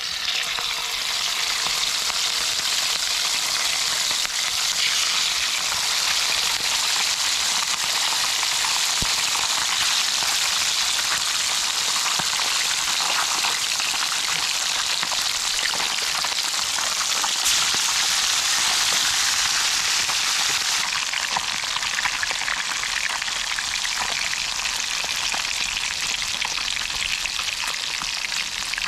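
Small whole fish, red mullet among them, frying in hot oil in a pan over a campfire: a steady, even sizzle.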